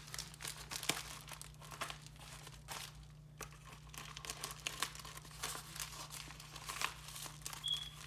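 Small plastic packaging bag being handled and opened, with irregular crinkling and rustling.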